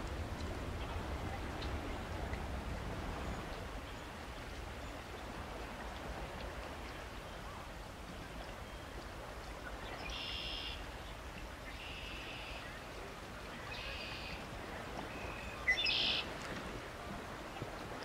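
A songbird calling from about ten seconds in: short high notes repeated about once every two seconds, one louder near the end, over a low rumble in the first few seconds.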